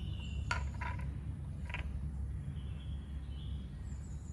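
Steady low background hum with a few faint, short clicks in the first two seconds.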